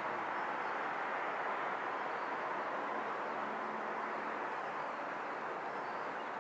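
Distant Boeing 747-400 freighter's four jet engines at takeoff power, a steady rush of noise as the jet begins its takeoff roll.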